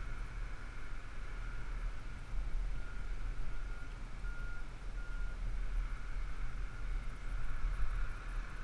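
Fire engine's diesel running with a steady low rumble, and a reversing alarm giving four short, faint beeps about three to five seconds in.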